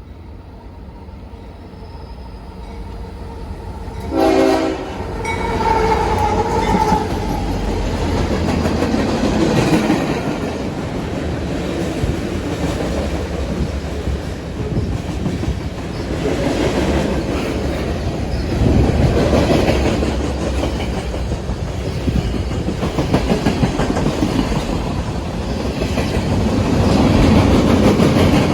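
Union Pacific manifest freight train approaching and passing, getting louder over the first few seconds; the lead locomotive's air horn sounds about four seconds in and carries on for a few seconds. After that comes the steady, heavy rumble of the GE AC44CW and EMD SD50 diesel locomotives and the freight cars rolling by on the rails.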